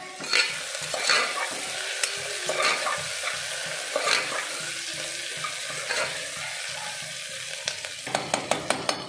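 Sliced onions sizzling in hot oil in a stainless steel pressure cooker as they fry toward golden brown, stirred with a perforated metal spatula that scrapes the pot about once a second. Near the end comes a quick run of sharp metal clicks from the spatula against the cooker.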